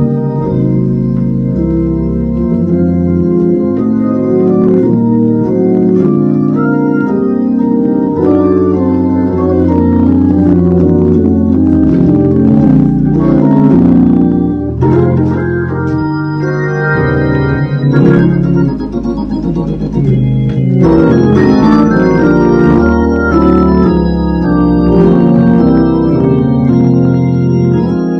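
Hammond organ played continuously: sustained full chords over a moving bass line, the chords changing every second or so, with a slight drop in loudness about two-thirds of the way through.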